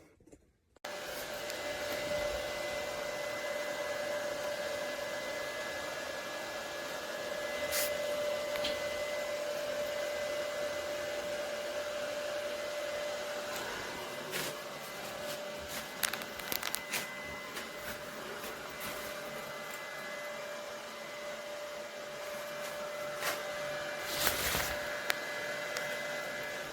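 Nekithia portable clothes dryer's 900 W heater fan running: a steady blowing whir with a fixed hum tone, starting abruptly about a second in. A few short knocks sound over it, the loudest near the end.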